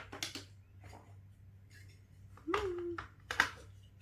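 Plastic Lego bricks being handled and pressed together: scattered clicks and light rattling, with one sharp, loud click about three and a half seconds in.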